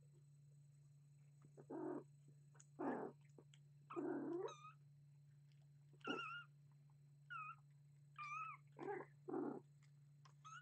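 Young kittens mewing in short, high-pitched calls, some bending up and down in pitch, about eight of them starting a second or so in, over a faint steady hum.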